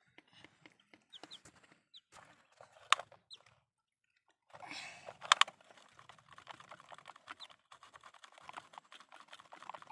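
Plastic toy excavator and dump truck handled in wet mud: scattered clicks and knocks of plastic with wet scraping, a sharper click about three seconds in and another about five seconds in, then a busier run of small clicks.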